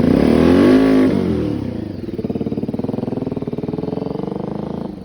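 CFMoto 250NK single-cylinder motorcycle with an SC-Project aftermarket exhaust, revved once: the exhaust note climbs to a peak about a second in and falls back. It then settles into steady low-rev running with a clear pulse, which drops off near the end.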